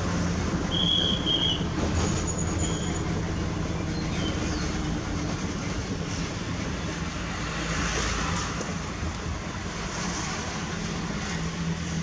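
Mitsubishi Fuso truck's diesel engine running under way, heard inside the cab with road noise. A few short high-pitched squeaks come in the first three seconds.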